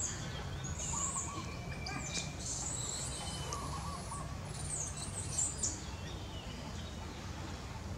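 Birds chirping, with short high calls and repeated warbling notes over a steady low background rumble.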